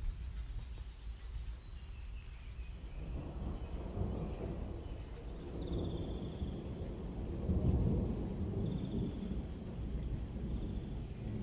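Wind buffeting a handheld camera's microphone outdoors: an uneven low rumble that swells and falls, heavier in the second half, with a few faint high chirps over it.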